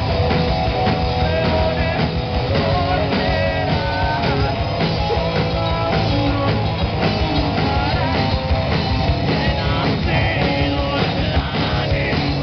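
Live rock band playing, with electric guitars and a drum kit, loud and steady.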